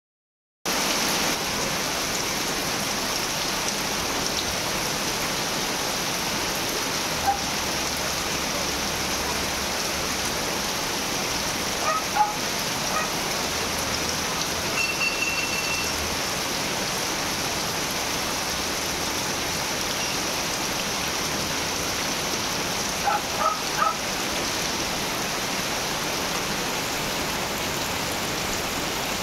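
Heavy rain falling steadily on wet ground, puddles and foliage, a constant even hiss. A few short, slightly louder ticks come through about halfway and again near the end.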